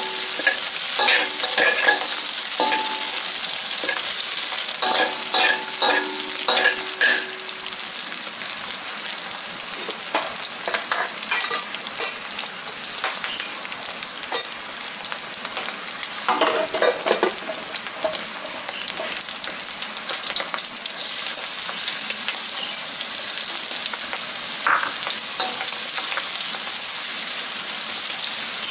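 Eggs sizzling steadily in hot oil in a steel wok. A metal spatula scrapes and clanks against the wok in clusters, mostly over the first several seconds and briefly again about halfway through.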